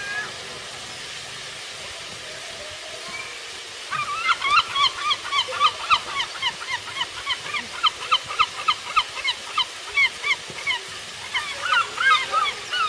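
A flock of birds calling in rapid short honks, several a second, starting about four seconds in over a steady background hiss.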